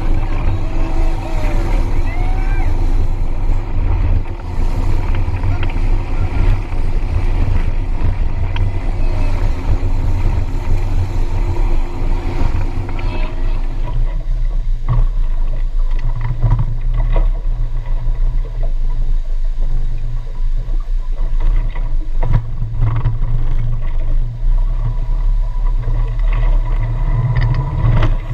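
Motorboat engine running steadily under way, a continuous low drone with wind and water rushing past. About fourteen seconds in the sound shifts to a deeper, stronger drone with less of the higher rush and a few short knocks.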